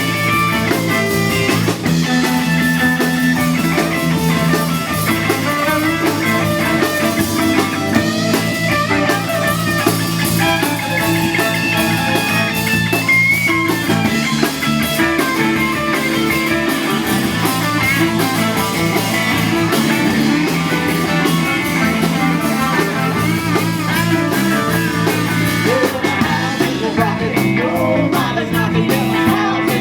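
Live rock band playing, with guitar prominent over a steady bass line.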